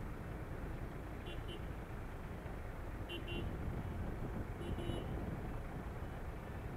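Motorcycle running at low speed, a steady low rumble of engine and road noise on the bike-mounted microphone. Three short double beeps sound about a second, three seconds and five seconds in.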